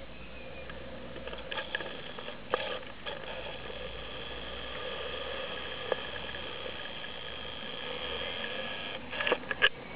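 Playmobil garden-railway works vehicle running along the track, its small electric motor and gears giving a steady whine, with a few sharp clicks and a louder double click near the end.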